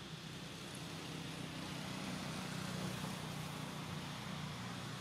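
A low motor hum that swells to its loudest about three seconds in and then eases a little, over a steady outdoor hiss.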